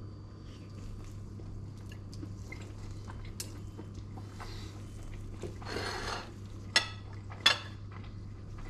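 A metal knife and fork working on a ceramic plate: a short scrape as the knife cuts about six seconds in, then two sharp clinks of the cutlery against the plate under a second apart, over a steady low hum.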